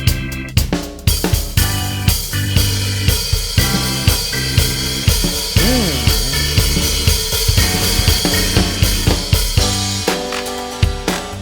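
Upbeat background music with a steady drum-kit beat, bass and snare, with a brief swooping effect about halfway through.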